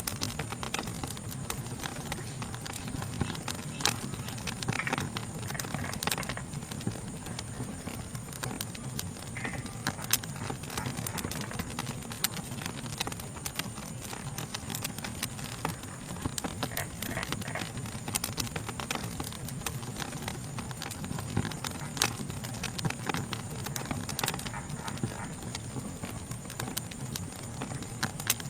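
Wood fire crackling, with frequent sharp pops and snaps over the low rumble of the flames, under a steady high-pitched insect chorus.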